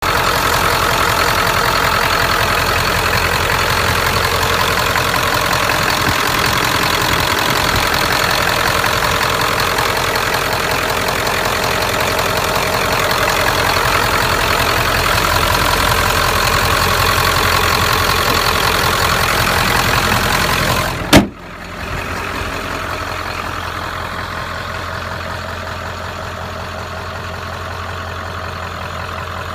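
1996 Ford F-250's 7.3 L Power Stroke turbo-diesel V8 idling steadily. About two-thirds of the way through there is a single sharp bang, after which the engine sounds quieter and duller.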